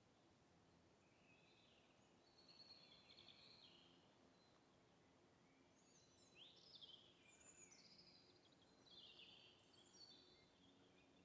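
Faint songbird song: several short, chirpy high-pitched phrases in bursts, over a quiet hiss of open air.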